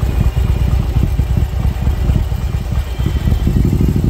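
Harley-Davidson Milwaukee-Eight 114 V-twin with an SS475 cam, running on a freshly auto-tuned Fuel Moto map while the bike is ridden. The exhaust note is uneven and pulsing at first, then settles into a steadier note about three and a half seconds in.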